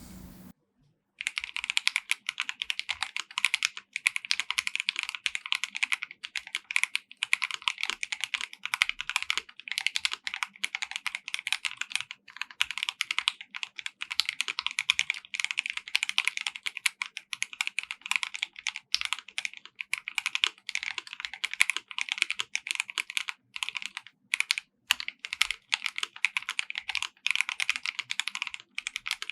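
Typing test on a KBD67 Lite R3 mechanical keyboard with a polycarbonate plate and linear switches: fast, continuous keystrokes starting about a second in, with a couple of brief pauses near the end.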